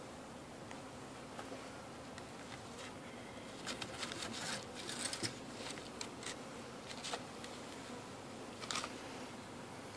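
A faint steady hum of honeybees flying around the hives. Scrapes and rustles come in a cluster from about four to seven seconds in, and once more near the end, as a stone and a flat piece of cardboard are handled on a hive lid.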